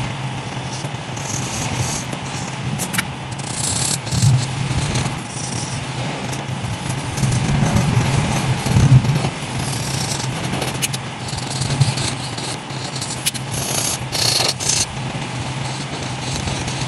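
Felt-tip marker rubbing and scratching across paper in repeated colouring strokes, with a few sharp clicks, over a steady low hum.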